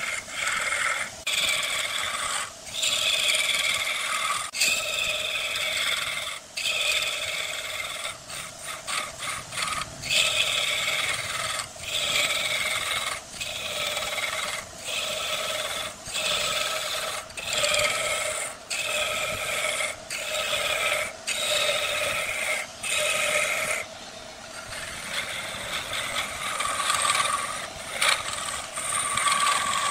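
Wood lathe spinning a workpiece while a turning tool scrapes and cuts the wood, with a steady pitched whine under the scraping. The cutting comes in passes broken by short gaps every second or two.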